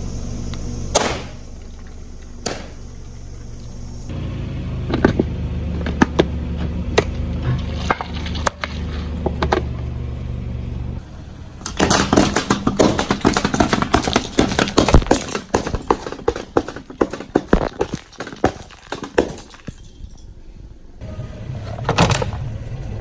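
A car tyre rolls over a row of aluminium soda cans, crushing and bursting them one after another in a dense run of crunches and sharp cracks lasting several seconds. Before that, the car's low steady rumble is heard with a few single sharp pops, and near the end another short cluster of cracks comes as the tyre runs onto a plastic object.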